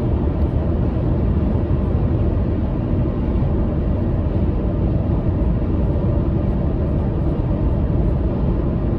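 Steady road and engine noise of a car driving at highway speed, heard from inside the cabin: an even low rumble with no breaks.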